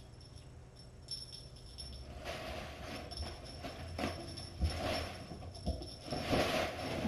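Kittens' feather wand toys being waved and shaken against a pop-up fabric play cube: light jingling with rustling in bursts.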